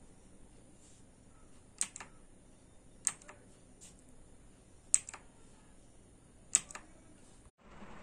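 Four sharp, separate key clicks from a Quantum QHM9800 mechanical keyboard with blue switches, each followed by a softer click as the key comes back up. One key is pressed again and again, about a second or two apart, to change the backlight mode.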